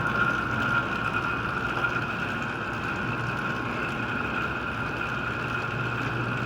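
Allstar garage door opener motor running steadily as it lowers a Wayne Dalton overhead door, with a low hum and a steady high whine.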